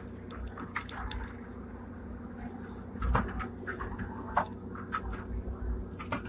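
Hong Kong tram running slowly, with a steady low electrical hum and scattered clicks and knocks, the loudest a clunk about three seconds in.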